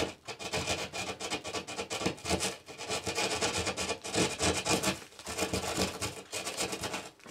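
Hand drywall saw cutting through plasterboard in quick back-and-forth strokes, with a few brief pauses.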